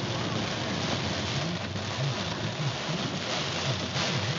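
Heavy rain pelting a car's windshield and roof, heard from inside the car as a steady dense hiss.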